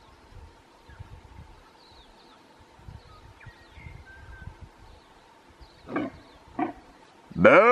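Red deer stag roaring during the rut: two short grunting calls about six seconds in, then a loud, deep roar near the end whose pitch rises and falls. Faint bird chirps sound earlier on.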